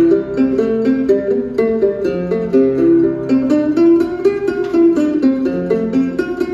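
A small son jarocho guitar plucked live, playing a quick melody of single bright notes that step up and down in an even rhythm.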